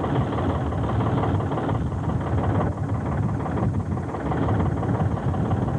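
Small fishing boat's motor running steadily: a continuous low rumble mixed with the rush of wind and water.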